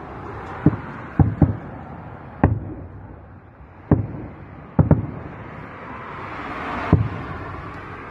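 Aerial fireworks shells bursting overhead: about seven sharp booms at irregular intervals, each with a short echo after it.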